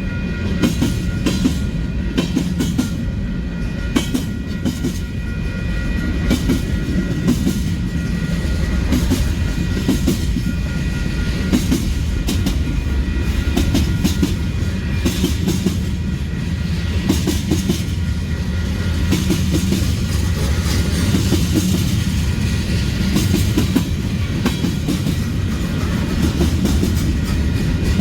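Long Union Pacific freight train rolling past close by: a steady low rumble of wheels on rail, with frequent sharp clicks as the wheels cross rail joints and a faint high steady whine.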